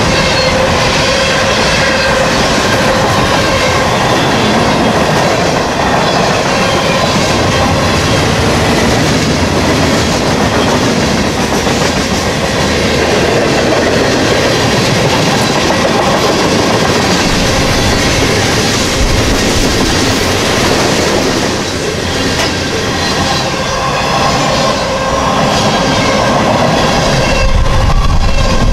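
Freight cars of a long train rolling past at track speed, steel wheels clacking over the rail joints, with a faint wheel squeal at times.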